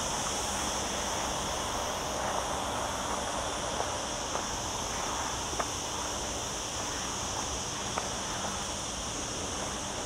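Cicadas buzzing in a steady, unbroken high chorus, with a few faint footsteps on a gravel track.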